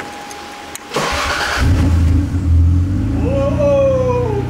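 Toyota Cressida's inline-six cranked by the starter about a second in and catching, then idling steadily, with a tone that rises and falls over it near the end. The engine is running on soybean vegetable oil in place of engine oil.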